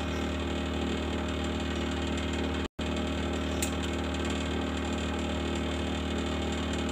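Steady low hum of a running appliance, made of several even tones. It is broken by a brief dropout to silence a little under three seconds in.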